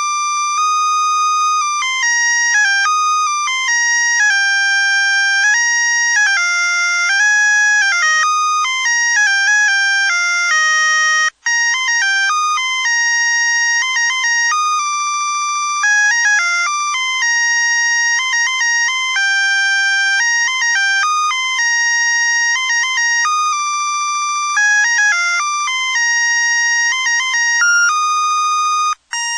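Musical Christmas light string's built-in sound chip playing an electronic melody, one beeping note at a time, breaking off briefly about eleven seconds in and again near the end.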